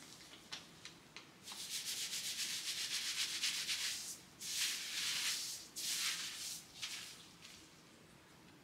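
Gloved fingers rubbing and scrubbing colour-remover mixture into damp hair at the scalp, as when shampooing. It is a rasping scrub that comes in three or four bouts of about a second or more each and fades out near the end.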